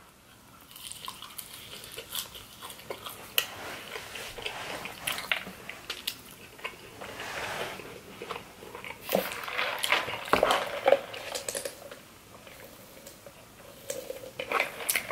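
Close-up mouth sounds of chewing food dipped in cheese sauce: irregular wet smacks and clicks of the jaw and lips. Near the end there is a sip from a drinking cup.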